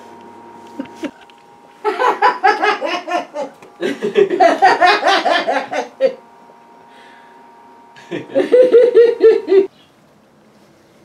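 A person laughing in three loud bouts of rapid pulses, starting about two, four and eight seconds in. A faint steady hum sounds between the bouts.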